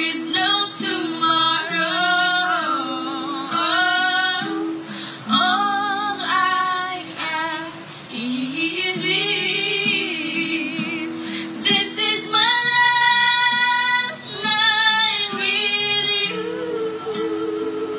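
A woman singing karaoke into a microphone over a recorded backing track, with some long held notes.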